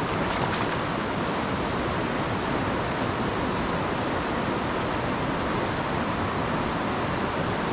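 Steady rush of a fast, high-running mountain river.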